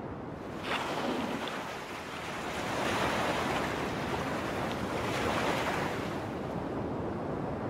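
Ocean waves washing in a steady rushing hiss that swells and eases, rising about a second in, around three seconds and again around five seconds.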